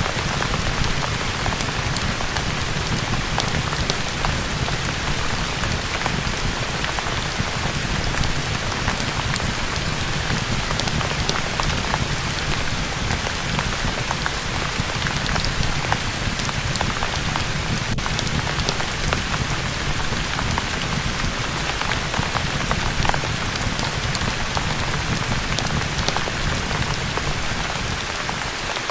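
Steady rain falling on a surface, an even downpour with a low rumble underneath and many small scattered drop ticks.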